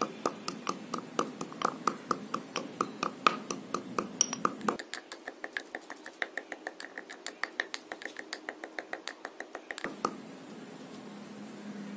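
Small pestle tapping rapidly in a little mortar, pounding green chillies and coriander leaves into a paste: quick sharp knocks, about three or four a second, that stop about ten seconds in.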